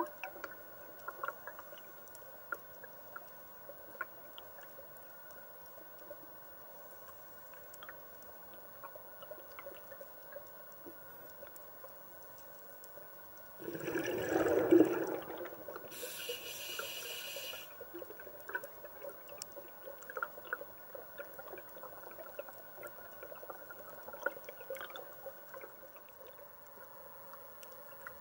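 Underwater ambience: scattered faint clicks over a steady low hum, with a louder burst of bubbling about halfway through, followed by a short high hiss.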